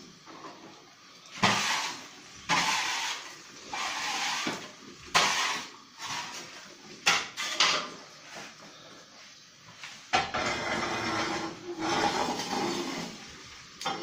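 Long metal rake scraping and clanking against the floor of a wood-fired bread oven as glowing embers are stirred: a string of sudden scrapes and knocks, then a longer stretch of scraping about ten seconds in.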